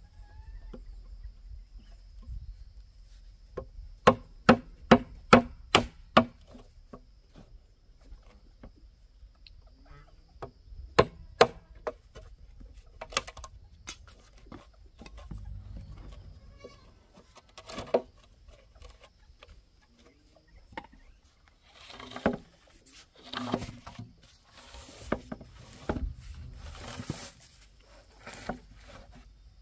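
Hammer blows on wood: a quick run of about six strikes, then single strikes here and there, with rougher scraping sounds in the last part.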